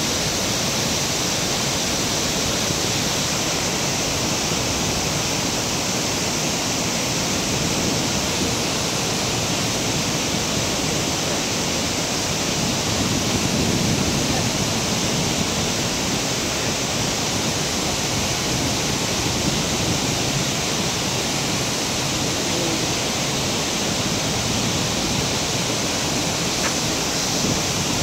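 Large waterfall in heavy spate: a loud, steady rush of falling water.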